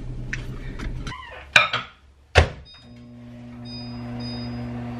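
Steady low car-cabin hum for about the first second. Then a couple of clicks and a single solid thunk of a door shutting, about two and a half seconds in, after which a microwave oven runs with a steady hum and a few faint high tones.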